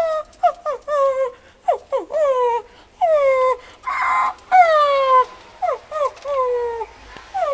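A woman imitating a crying baby ferret with her voice: a string of high, whining cries that each fall in pitch, some short and some drawn out, with a breathier cry about four seconds in.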